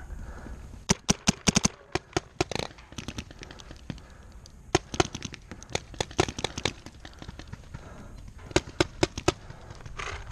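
Paintball markers firing in rapid strings of sharp pops, several shots a second, in four or five bursts with short pauses between.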